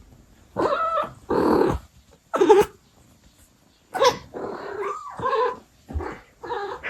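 Abyssinian mother cat talking to her kittens in a string of short calls: three, a pause of about a second, then five more in quick succession.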